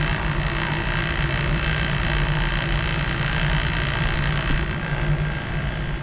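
Laboratory machinery running with a steady low hum and a broad hiss.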